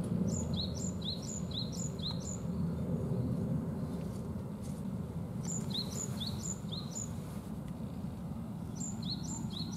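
A small songbird singing a phrase of four or five quick, repeated chirps, about three a second, heard three times: at the start, in the middle and near the end. Under it runs a steady low background noise.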